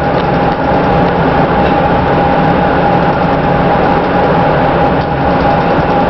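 Amtrak passenger train running at speed, heard from inside the carriage: a steady rumble of the train in motion with a steady whine held at one pitch.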